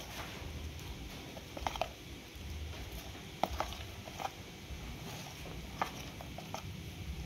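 Metal spoon stirring thick, wet rice-flour batter in a plastic bowl, with scattered short clicks as the spoon knocks and scrapes the bowl.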